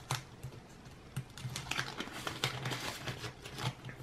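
Paper dollar bills and a clear plastic cash envelope being handled: soft crinkling and rustling with a run of light taps and clicks.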